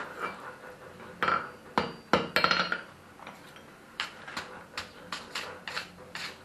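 Hand hammer striking glowing iron bars on a steel anvil during a forge weld. A few sharp blows with a brief metallic ring come a second or two in, then lighter, even taps about three a second.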